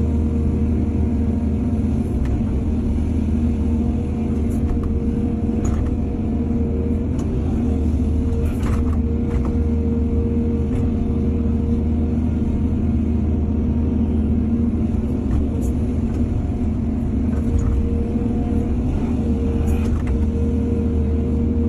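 Excavator's diesel engine running steadily, with a steady whine over the low rumble and a few short knocks, the most marked about halfway through.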